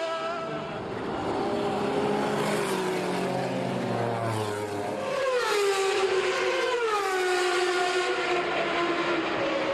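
Sports-prototype racing car engine running at high revs. Its pitch rises sharply about five seconds in, then falls away in steps.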